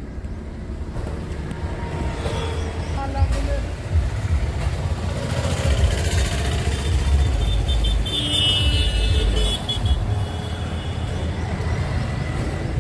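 Road traffic passing with a steady low rumble, and a vehicle horn sounding in a few short high toots about two-thirds of the way through.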